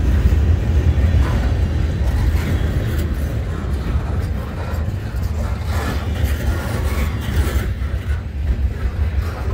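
Loaded centerbeam lumber flatcars of a freight train rolling past at close range: a steady low rumble of steel wheels on the rails.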